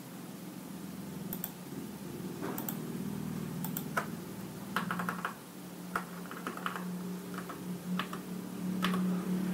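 Scattered clicks of computer keyboard keys and mouse buttons, some in quick runs, over a steady low hum.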